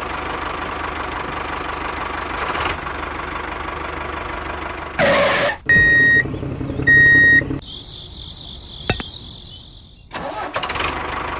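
Tractor engine running steadily, then two short beeps about a second apart, a stretch of high warbling with a click, and the engine running again near the end.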